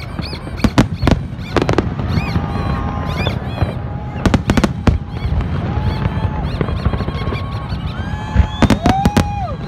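Fireworks display: aerial shells bursting in sharp bangs over a steady low rumble of the barrage. The bangs come in clusters, about a second in, around four and a half seconds in, and again near the end.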